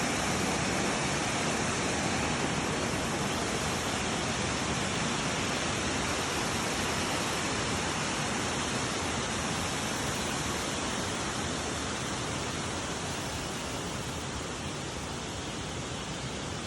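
Waterfall: a steady rush of falling water, easing slightly in loudness over the last few seconds.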